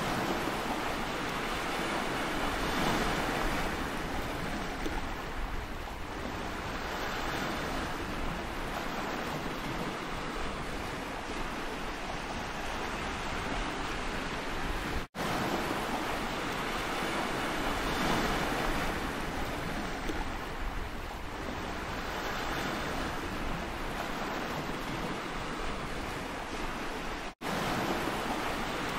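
Sea surf washing in: a steady rush of water that swells and eases every few seconds. It drops out twice, very briefly, for a moment.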